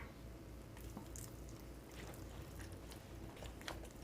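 Faint wet squishing with a few soft clicks: a thick gochujang-based seasoning paste being stirred together in a bowl.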